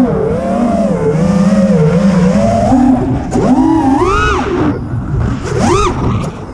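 Brushless motors and props of a 6S FPV freestyle quadcopter whining, the pitch wavering up and down with the throttle. Two sharp punches about four and five and a half seconds in send the whine sweeping up high and back down.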